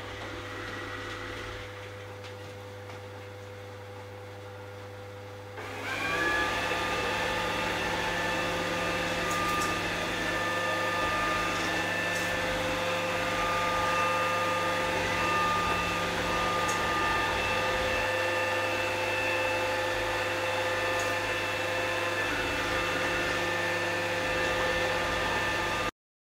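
Toshiba robot vacuum cleaner running: a low steady hum for the first few seconds, then about six seconds in its motors spin up with a quick rising whine and settle into a steady whir with several whining tones. The sound cuts off suddenly near the end.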